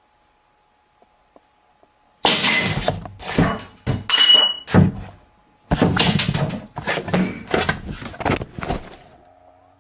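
After about two seconds of near silence with a faint electrical hum, a rapid run of loud thuds and bangs with rattling and knocking, in two clusters, dying away near the end.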